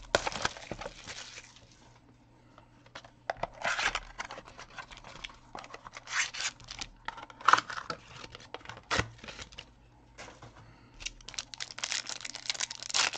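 The wrapping on a sealed baseball card box being torn open, crinkling and ripping in short, irregular bursts.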